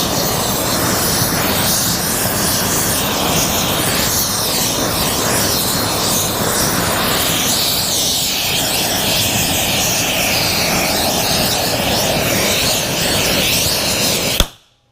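Oxy-acetylene torch with a rosebud heating tip burning steadily, heating a steel part to annealing temperature. The flame is shut off near the end and cuts out suddenly with a sharp click.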